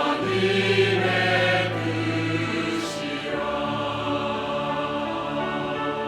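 Church choir singing an anthem with instrumental accompaniment.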